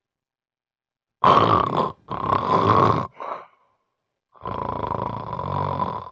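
Loud snoring from a sleeper with severe obstructive sleep apnea: three harsh snorts in quick succession, the last shorter and weaker, then a longer drawn-out snore near the end.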